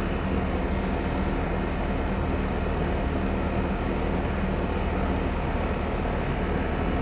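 Outdoor air-conditioner condenser unit running steadily: a compressor hum with low steady tones under the even rush of its fan.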